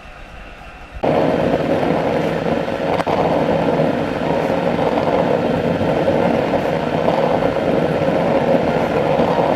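Waste-oil stove burning: a loud, steady rushing noise from the burner that starts suddenly about a second in.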